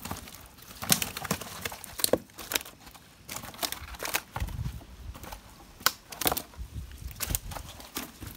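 Hands sorting live tilapia in a plastic basin: irregular wet slaps and knocks of the flapping fish against each other and the basin's plastic sides, several a second.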